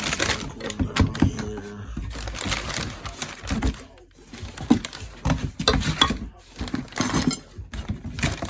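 Hands handling cold air intake parts and their packaging: irregular rustling and crinkling with light clicks and knocks.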